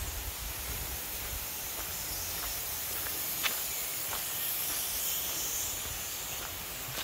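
Steady, high-pitched hiss of a tropical forest insect chorus, with a few faint ticks.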